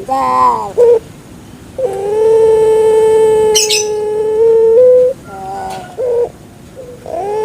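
Puter pelung dove (a Barbary dove kept for its voice) cooing. A short rising note opens, then a long, level, drawn-out coo held for about three seconds, a few short notes, and another long coo starting near the end.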